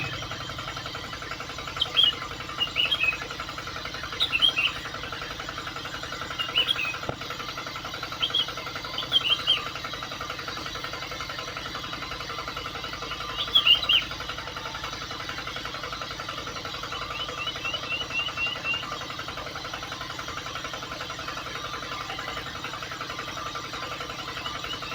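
Short, high bird-like chirps every second or few, with a rapid trill of repeated notes near the middle, over a steady mechanical hum.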